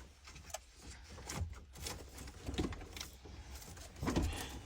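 Wiring being handled and tucked behind a car stereo: soft rustling with a few scattered light clicks and knocks of plastic.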